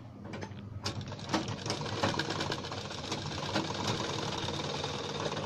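A black FARAZ straight-stitch sewing machine running steadily, stitching through cotton blouse fabric; it starts a moment in and keeps an even pace.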